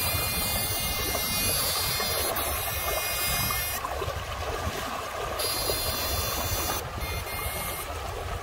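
Shallow river water rushing over rocks, a steady rushing noise. A high, buzzy whine switches on and off three times over it.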